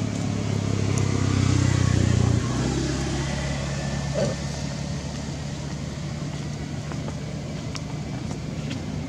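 An engine running steadily, a low hum that is louder for the first two and a half seconds, then drops and holds quieter.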